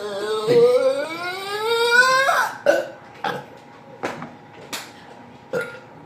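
A long, drawn-out burp lasting about two seconds and rising steadily in pitch, followed by a few short sharp sounds.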